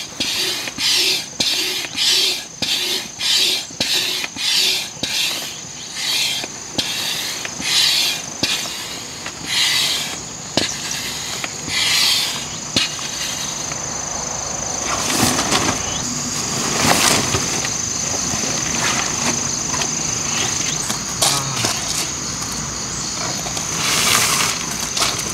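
Repeated noisy strokes, about two a second, that spread out and stop about halfway through, over a steady high-pitched drone of insects.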